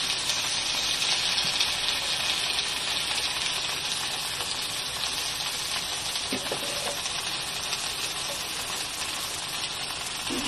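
Sliced onions and bell pepper frying in a wok, giving a steady sizzle that eases slightly toward the end.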